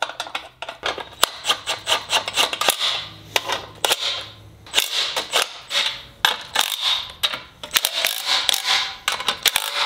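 Metal car parts and hardware being handled on a bench: a busy run of irregular clinks and knocks with short scraping rubs between them.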